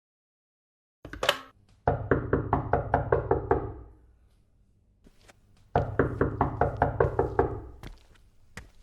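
Rapid heavy knocking in two runs of about ten knocks each, a couple of seconds apart, preceded by a single sharp knock and followed by a few lighter taps.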